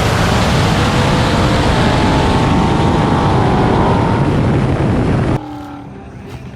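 Ford Mustang GT 5.0 V8 engines at full throttle in a roll race, their pitch climbing under a heavy rush of wind noise. The sound cuts off abruptly about five seconds in, leaving a much quieter background.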